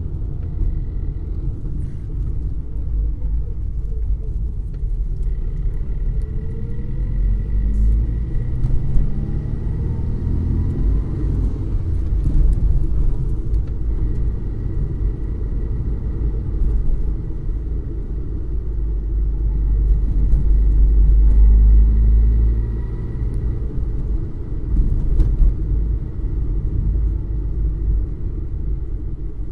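Car engine running, heard from inside the cabin as a steady low rumble. The engine note rises in pitch a few seconds in and swells louder about two-thirds of the way through.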